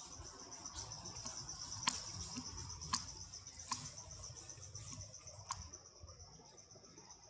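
Forest insects chirring in a steady, fast-pulsing high trill, with four sharp clicks at about two, three, three and a half and five and a half seconds in.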